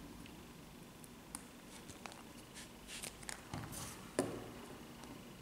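Plastic surprise egg being handled and opened on a wooden table: scattered light clicks and brief rustling of the wrapped toy inside, with one sharper knock a little after four seconds in.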